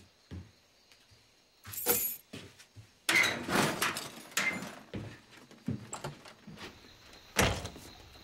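A run of knocks, thuds and bangs, like a door and things being knocked about. The loudest bang comes about three seconds in and is followed by a second or so of clatter, and another strong bang comes near the end.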